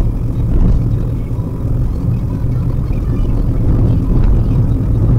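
Steady low rumble of engine and road noise inside a Maruti Suzuki WagonR's cabin while it drives along.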